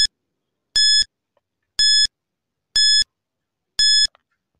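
Countdown timer sound effect: a short, high electronic beep once a second, counting down the seconds left to answer.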